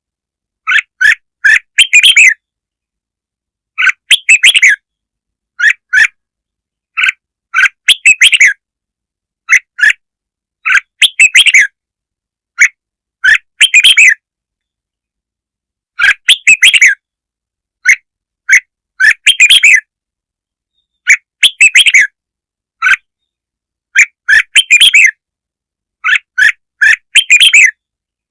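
Red-whiskered bulbul singing: short, loud phrases of quick chirps, one every second or two, with dead silence between them. This is a lure song (kích mồi) of the kind played to draw out or stimulate bulbuls.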